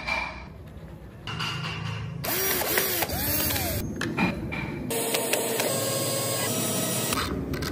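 Clicks and scraping of wooden and metal parts being fitted by hand, then a cordless drill whining for about two seconds as it drives a bolt into a wooden model chassis, stopping abruptly.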